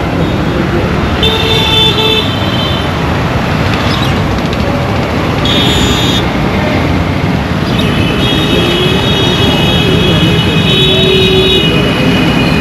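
Dense road-traffic rumble with vehicle horns honking over it: a short toot about a second and a half in, another about six seconds in, then longer, overlapping honks from about eight seconds in.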